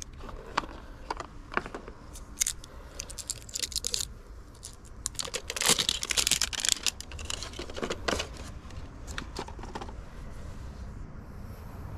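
Crinkling and tearing of paper or plastic, with scattered clicks and scrapes; the loudest, longest tear comes around the middle.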